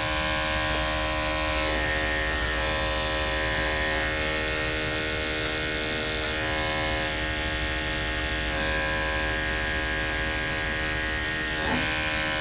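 Electric dog grooming clipper fitted with a #40 blade, running steadily with a constant hum and high whine while trimming the hair between a dog's paw pads.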